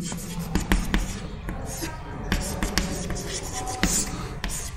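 Chalk writing on a blackboard: a string of short, sharp taps with scratchy strokes between them as a word is written.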